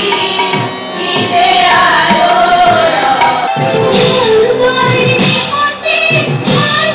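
Music with a voice singing a melody over instruments and percussion.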